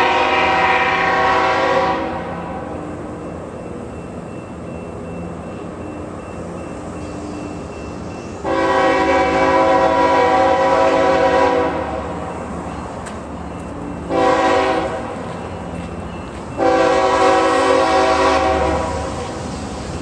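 An approaching train's multi-chime locomotive air horn sounds the grade-crossing signal: two long blasts, a short one, then a long one. A steady low rumble carries on between the blasts.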